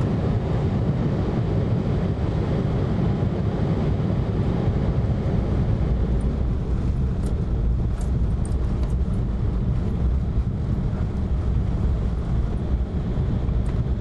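Airliner cabin noise: the steady low rumble of the engines and rushing air heard from a window seat as the plane comes in on approach.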